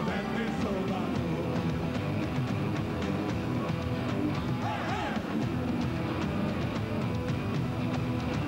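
Rock music with a steady drum beat playing over the closing credits.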